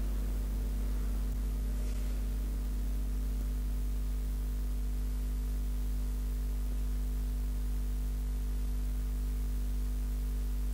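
Steady mains hum and hiss of an old analogue radio broadcast recording, with no music playing.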